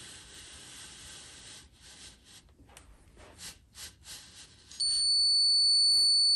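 Handheld electronic stud finder scuffing across drywall, then, about three-quarters of the way in, giving a loud, steady, high-pitched beep that holds on; the tone is its signal that it has found a stud.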